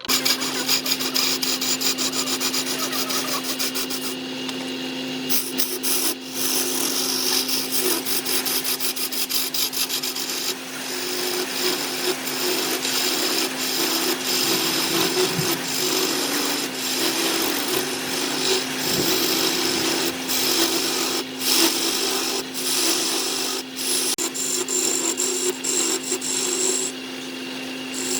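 A wood lathe running with a steady motor hum while a turning tool scrapes and cuts the spinning wood in a continuous rasping hiss, broken by many short scratchy catches.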